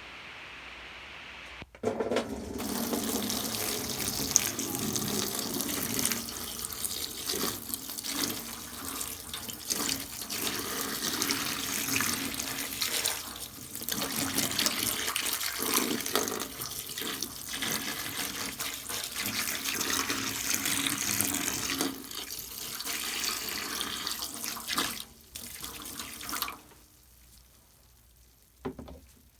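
Water running from a tap into a bath, starting suddenly about two seconds in and shutting off a few seconds before the end.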